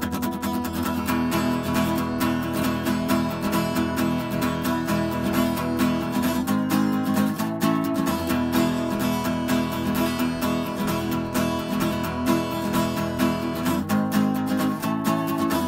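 Background music: strummed acoustic guitar playing steadily.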